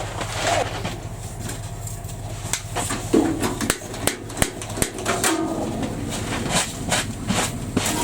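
A steady low engine hum, like an idling motor, with many scattered clicks and knocks over it.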